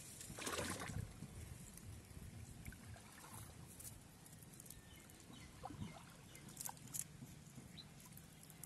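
Faint water sloshing and splashing around a person wading waist-deep in a pond, with one louder splash about half a second in and a few small splashes and clicks around six to seven seconds.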